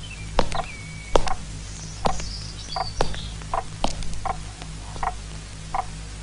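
Night ambience of small animal calls: short calls repeating about every three-quarters of a second, with scattered sharp clicks and a few faint high squeaks over a low steady hum.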